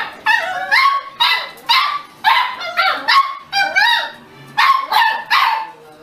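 Beagle puppies yelping: a rapid string of about a dozen short, high yips with bending pitch, stopping shortly before the end.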